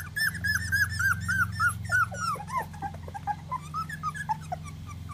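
A four-week-old puppy squeaking in quick, repeated high chirps, about four a second, which drop lower, come more sparsely and grow fainter after about two seconds, as it settles in against its mother to nurse. A steady low hum lies underneath.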